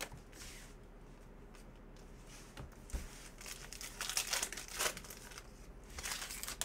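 Foil wrapper of a 2019-20 Panini Prizm basketball retail pack crinkling and tearing in the hands in several short bursts as the pack is opened and the cards are pulled out.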